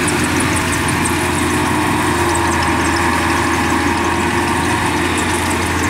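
Kubota rice combine harvester's engine running steadily.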